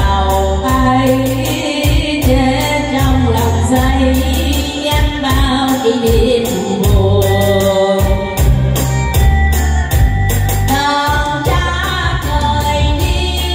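A woman singing a Vietnamese song into a microphone over instrumental accompaniment with a steady beat and pulsing bass.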